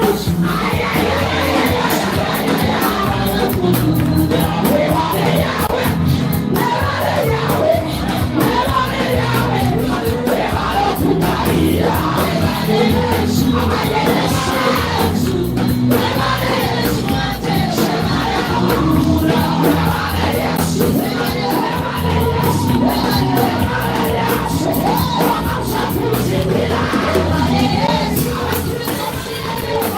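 Church worship music with a steady beat and bass under a congregation praising aloud together, many voices singing and calling out thanks to Jesus.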